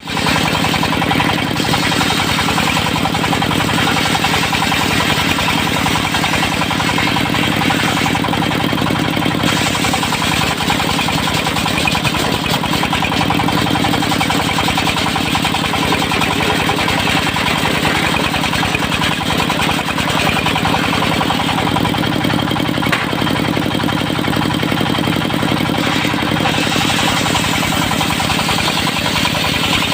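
Diesel engine of a portable circular sawmill running steadily at a constant speed.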